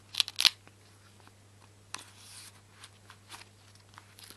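Metal clicks and handling noise from a Leatherman Rebar multi-tool being handled: two sharp clicks near the start, then a click and a short scrape about two seconds in, and a few fainter clicks.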